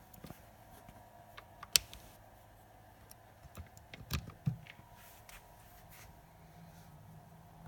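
Handling clicks from a handheld CCTV tester and its cable: a single sharp click about two seconds in, then a short cluster of clicks and dull knocks about four seconds in as a connector is pushed into the tester's side port.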